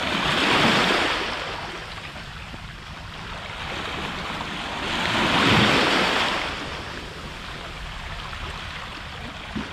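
Sea waves washing in against a rocky shore: two surges about five seconds apart, each swelling and then ebbing away over a few seconds.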